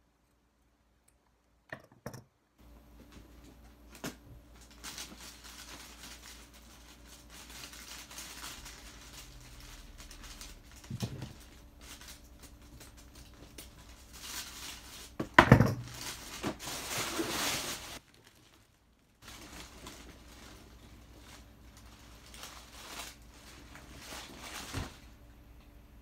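Clear cellophane gift wrap crinkling and rustling as it is handled, with scissors snipping ribbon ends. A sharp knock, the loudest sound, comes about two-thirds of the way through, amid a busier stretch of crinkling.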